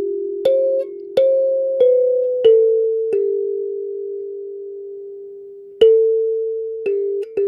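Kalimba playing a slow melody, one plucked metal tine at a time, each note ringing on and overlapping the next, with a pause of about two and a half seconds in the middle before the tune resumes. The player finds the instrument's sound strange.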